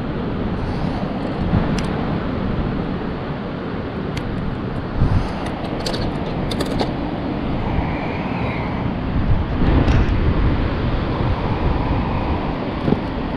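Steady rush of wind and surf on an open beach, with a deep rumble of wind on the microphone that swells about two-thirds of the way through.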